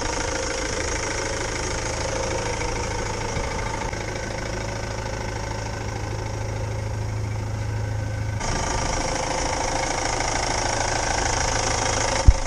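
Ford Transit van's engine idling steadily, its sound shifting abruptly about eight seconds in, with two sharp knocks just before it cuts off.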